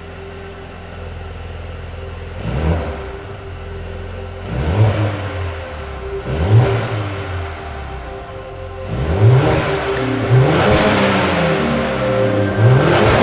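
Mercedes-AMG A35's turbocharged 2.0-litre four-cylinder idling through its exhaust, then revved in sharp blips. Three single revs come a couple of seconds apart, then a quicker series of revs in the second half.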